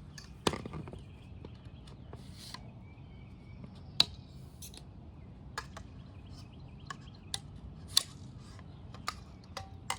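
Scattered sharp clicks and knocks of paddleboard gear being handled and packed, with the loudest about half a second, four seconds and eight seconds in.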